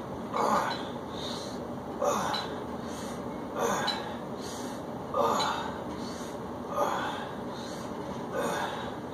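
A man's hard, effortful breathing in time with seated dumbbell shoulder presses: a forceful exhale about every second and a half, six in all, with quieter inhales between.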